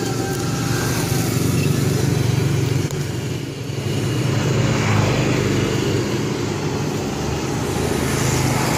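Motorcycle engine running steadily, a low even hum, with street traffic behind it.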